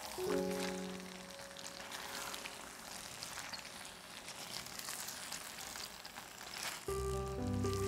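Food sizzling in a frying pan: a steady crackling hiss with small scattered ticks. Background music fades out in the first second and comes back about seven seconds in.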